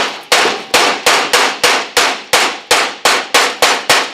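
A hand hammer strikes the new steel trunk floor panel in a steady series of sharp, ringing blows, about three a second. The blows knock the sheet metal down flush so that it touches the structure underneath, ready for spot welding.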